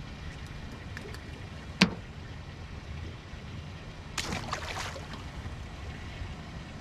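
A small smallmouth bass splashing into the river as it is tossed back, a short splash about four seconds in. Earlier, about two seconds in, a single sharp knock, the loudest sound, over a steady low rumble.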